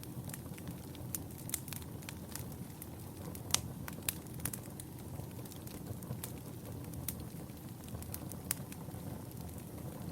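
Wood fire burning in a fireplace: a steady low rumble of flames with irregular sharp crackles and pops, the loudest pop about three and a half seconds in.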